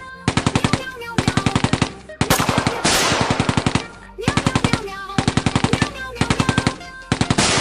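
Repeated short bursts of rapid machine-gun fire, about ten shots a second, seven bursts in all. A longer blast rings out and fades after the third burst, about three seconds in.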